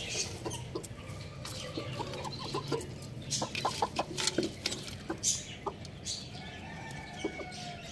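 Chickens clucking with short calls, with many scattered short sharp taps of beaks pecking at the ground and a clay pot.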